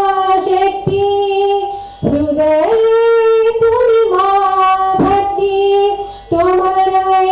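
A single high voice singing slow, long held notes with brief breaks between phrases. The pitch steps up about two and a half seconds in and settles back lower around the fifth second.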